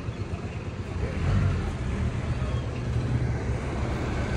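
Street traffic noise: vehicle engines running with a steady low rumble.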